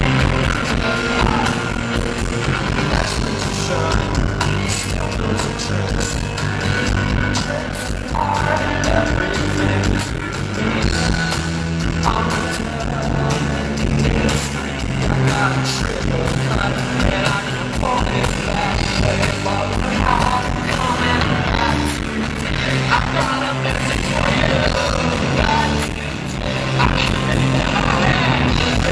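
Live rock band playing a song with sung vocals, electric guitars, bass and drums, heard through a poor-quality audience recording.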